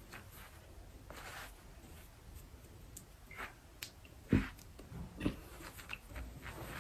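Faint rubbing and handling sounds of a cream blush stick being worked over the skin of the face, with two soft knocks a little after four seconds and about five seconds in.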